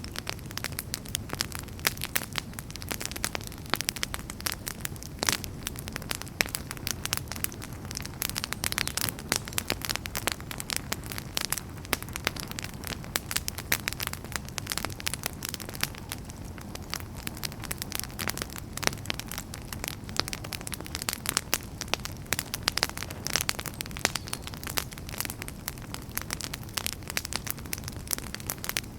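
Wood campfire burning and crackling: many sharp irregular pops and snaps over a steady low rumble of the flames.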